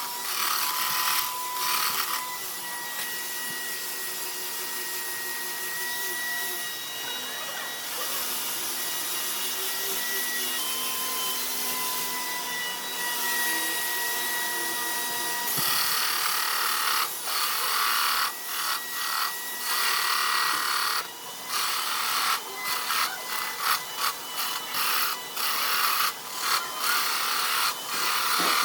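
Hand-held power tool running against wood with a thin motor whine. About halfway through, the sound turns choppy, cutting in and out rapidly.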